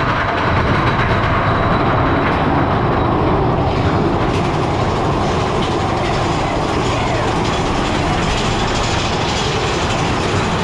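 Big Thunder Mountain Railroad mine-train roller coaster running along its track: a steady, loud rumble of the train's wheels with rushing wind.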